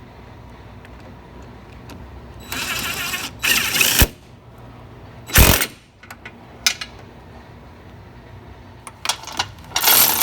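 A power tool running in several short bursts, driving in the steering rack's mounting bolts, with a few clicks and knocks between the bursts.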